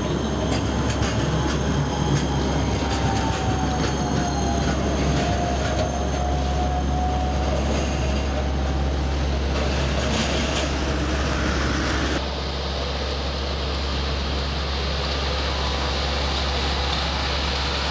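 Škoda 14T low-floor tram rolling slowly around a curve on street track, its wheels squealing with a thin tone that slides down and then holds, with scattered clicks from the wheels and rails. About twelve seconds in the sound changes abruptly to steady street noise.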